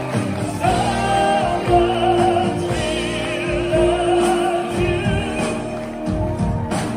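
Live music: a male singer holds long notes with a wide vibrato into a microphone over keyboard and band accompaniment.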